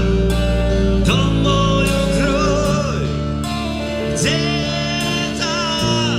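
A band plays an instrumental passage between verses: steady bass and chords under a lead melody of held notes with wavering vibrato.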